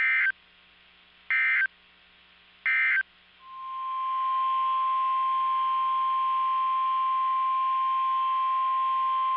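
NOAA Weather Radio emergency alert tones: three short bursts of SAME header data tones, about 1.3 s apart, then the steady 1050 Hz warning alarm tone for about six seconds, cutting off sharply. This sequence marks the start of a new warning, here a tornado warning.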